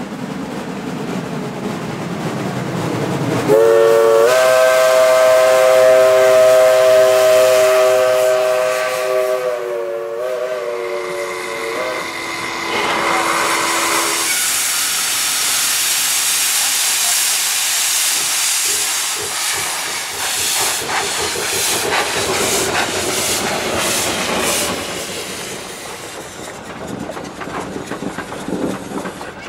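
Lima-built Shay geared steam locomotives: a steam whistle blows a long chord of several notes from a few seconds in, dips briefly, and trails off on a single lower note. Then comes a loud steam hiss from open cylinder cocks, with a run of quick exhaust chuffs and clanks as the Shay gets moving, fading near the end.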